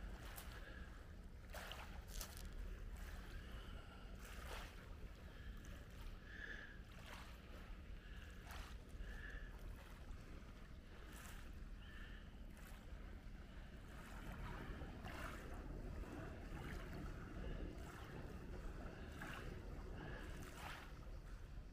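Boat motors running around the marina: a low, steady rumble that grows a little louder about two-thirds of the way through, with scattered short clicks.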